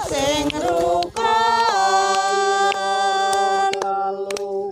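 Song in Javanese sung a cappella: a short melodic phrase, then one long held note from about two seconds in, with a few sharp knocks near the end.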